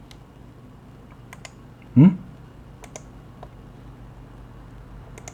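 Scattered sharp clicks from a computer keyboard and mouse, several coming in quick pairs. A brief falling vocal murmur sounds about two seconds in.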